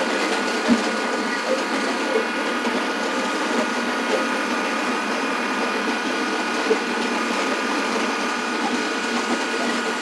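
A 33 hp Kubota compact tractor's engine running steadily under load as it drags a Land Pride box blade with its ripper shanks down through loose gravel, making a continuous drone with scraping, and a small click about a second in.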